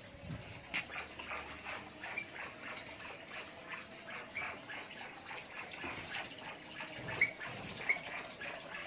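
Small songbirds chirping: a steady run of short, quick chirps, with two sharper, louder chirps near the end.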